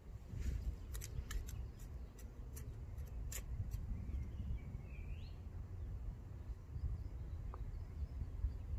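A hand trowel digs into loose garden soil, making a quick run of scraping clicks in the first few seconds over a steady low rumble. A bird gives one short rising call about five seconds in.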